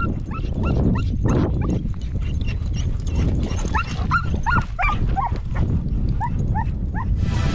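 A dog yipping and whining in many short, high yelps that rise and fall, coming thickest about halfway through, over a steady low rumble.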